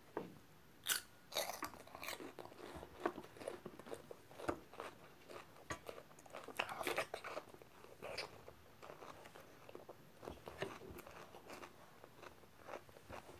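A boy biting and chewing crunchy food close to the microphone: irregular crunches, thickest in two spells about a second in and again around the middle, thinning out towards the end.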